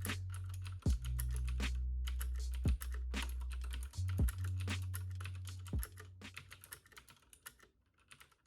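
Typing on a KBParadise V100 mechanical keyboard with clicky Cherry MX Blue switches: a quick, uneven run of sharp key clicks that thins out near the end. Under it a steady low drone shifts pitch a few times and fades away after about six seconds.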